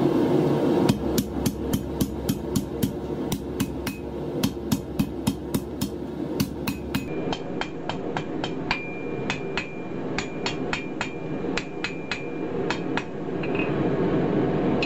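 Hand hammer striking a red-hot cable-damascus blade on a steel anvil in a fast, even run of about three blows a second, many of them with a bright anvil ring. The hammering stops about two seconds before the end, leaving a steady background rush.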